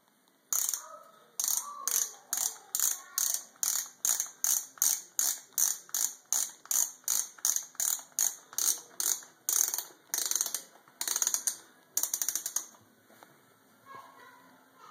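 BOA lacing dial on a Red Wing boot being twisted to tighten the laces: bursts of fast ratcheting clicks, two to three turns a second, stopping a couple of seconds before the end.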